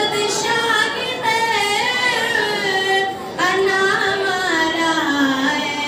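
A woman's solo voice singing a naat, a devotional song in praise of the Prophet, in long held notes that bend and waver, with brief breaths between phrases.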